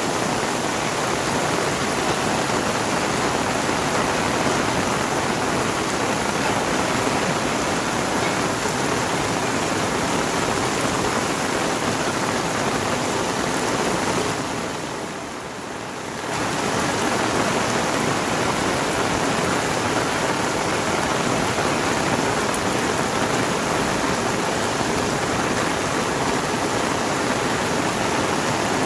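Heavy rain pouring down in a steady, loud hiss, dipping briefly about halfway through.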